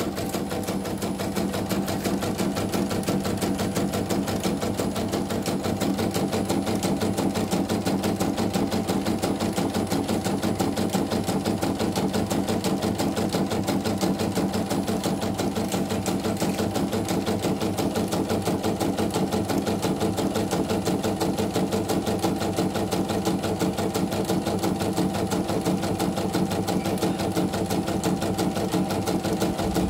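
CNY portable computerized embroidery machine stitching, its side cover off: a rapid, even clatter of needle strokes as the needle bar drives and the hoop shifts. It is a test run after repair of the sagging presser foot, going smoothly with no thread breaks.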